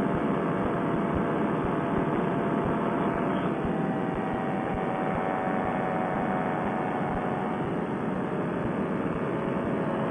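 Fresh Breeze Monster paramotor engine and propeller running steadily at cruise power in flight, an even drone with no change in pitch or level.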